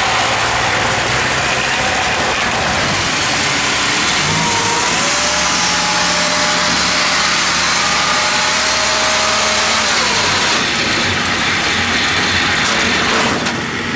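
Small engine of a rice-hauling sled machine running loud and steady. About four and a half seconds in it speeds up, holds a higher pitch, and drops back about ten seconds in.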